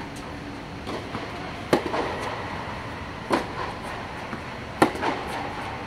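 Tennis balls struck with racquets and bouncing on a hard court during a forehand drill. There are three loud sharp hits about a second and a half apart, with fainter ball sounds between them.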